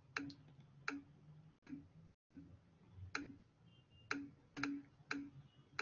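Faint, irregular clicks, about half a dozen sharp ones spread over a few seconds, with a few softer low blips between them, over an otherwise quiet line.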